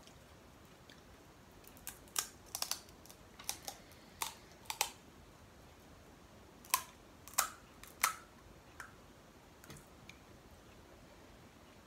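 Crisp cracking of hollow fried panipuri (golgappa) shells as they are punctured with the fingers. About a dozen short sharp cracks come close together between roughly two and eight seconds in, with a few fainter ones later.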